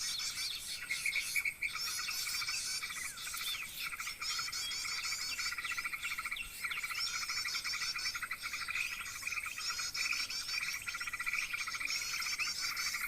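Small birds chirping in short, repeated high phrases several times, over a steady pulsing trill.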